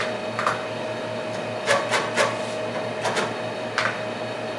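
Xerox Alto keyboard keys clicking several times at an irregular pace over the steady hum of the Diablo disk drive. The drive is spinning smoothly on its replacement spindle.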